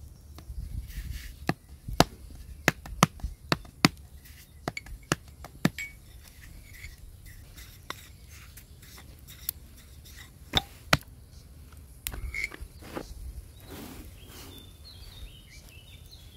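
Thin wooden rolling pin clacking and knocking against a wooden board as flatbread dough is rolled out, in sharp irregular knocks that come thickest in the first few seconds and thin out later. A bird chirps briefly near the end, over a low rumble of wind on the microphone.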